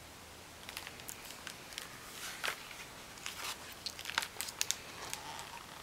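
Pages of a hardcover picture book being handled and turned: faint paper rustling with small crinkles and ticks, the loudest crinkle about two and a half seconds in.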